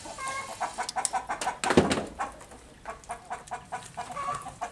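Chickens clucking in a rapid, even series of short calls, with a single loud thump a little under two seconds in.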